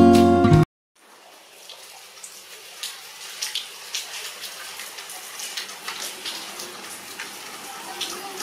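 Acoustic guitar music cuts off abruptly less than a second in. After a brief silence, steady rain fades in, falling on leafy foliage with scattered sharp drip ticks.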